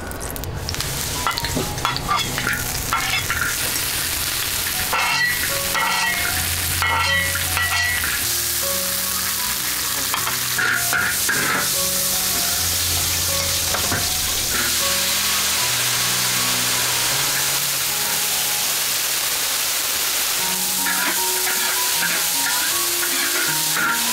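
Hot oil sizzling in a large iron wok as shredded vegetables are stir-fried, with a steady sizzle throughout. A metal spatula scrapes and clacks against the wok, most often in the first several seconds.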